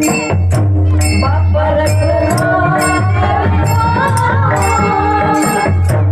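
Devotional bhajan in raga Bhairavi: a voice sings a wavering, ornamented melody over a low drum and jingling metal percussion. The percussion strikes in steady pairs about half a second apart.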